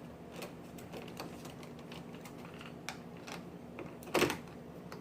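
Light scattered clicks and taps of metal doorknob parts being handled, with one louder clack about four seconds in.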